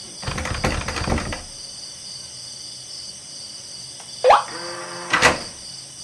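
Electronic smart door lock unlocking: a rattling mechanical whir of the latch and handle for about a second near the start. A short rising electronic chirp with brief tones follows about four seconds in, then another short beep just after five seconds.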